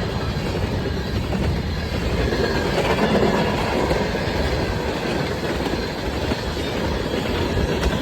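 Freight train passing close by, its cars rolling past in a loud, steady rumble of wheels on rails.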